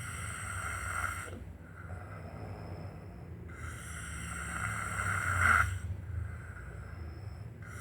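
A man snoring in his sleep: long snores about every four seconds, each lasting about two seconds. One trails off about a second and a half in, and the next runs from about three and a half to nearly six seconds in, peaking just before it stops.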